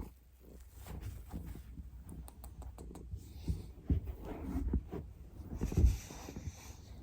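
Foam rolling on a foam roller: irregular low thumps and rustling as the body shifts and rolls, with a few short sharp clicks a couple of seconds in. The thumps are loudest about four seconds in and just before six seconds.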